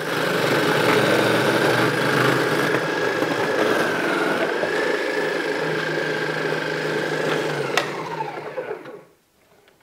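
Ninja Foodi Power Blender Ultimate System's motor spinning the shredding disc as carrots are pushed through the feed chute: a steady high whine whose pitch dips briefly about four seconds in. The motor winds down with falling pitch about eight seconds in.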